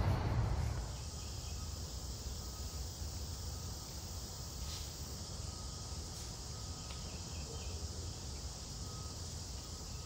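Outdoor ambience: a steady, high-pitched insect chorus over a low, even rumble.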